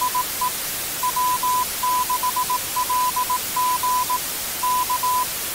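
Morse code: a steady tone of about 1 kHz keyed in dots and dashes over a constant hiss, spelling the station identification "DE W6LG K" (this is W6LG, over).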